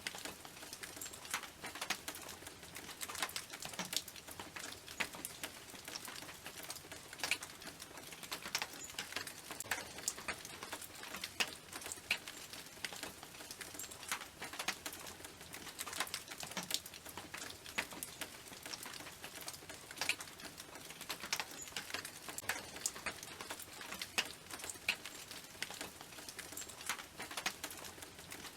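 Rain falling on a tin roof: sharp, irregular drop hits on the metal over a steady patter.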